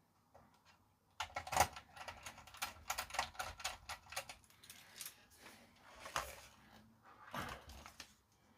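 Small metal screws clicking and rattling as they are handled and dropped into a small pot, a quick run of clicks starting about a second in and thinning out near the end.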